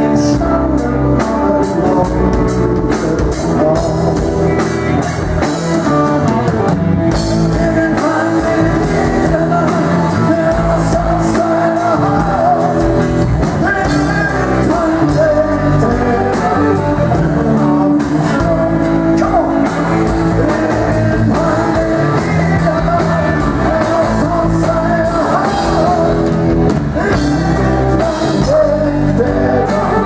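A rock band playing live: guitar, bass guitar and drum kit, with a man singing lead.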